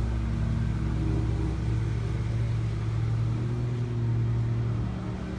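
A steady low mechanical hum, like a motor or engine running nearby.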